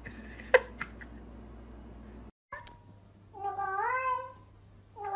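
Two long drawn-out cat meows, each about a second long and bending up and down in pitch, the second starting near the end. A couple of faint taps come about half a second in.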